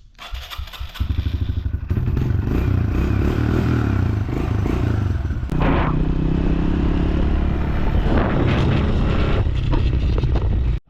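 A vehicle engine pulling away about a second in and running steadily under way, with rattling and clatter over it. The engine note dips briefly about halfway through, then carries on and cuts off suddenly at the end.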